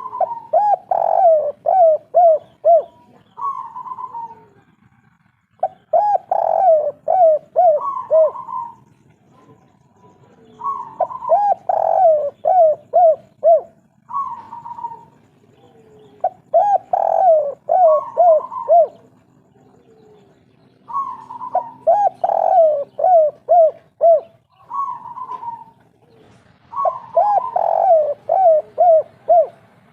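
Spotted dove singing its 'kuk 3' cooing song six times, about every five seconds. Each phrase opens with a coo, runs into a quick string of five or six short falling coos, and ends with a separate higher coo.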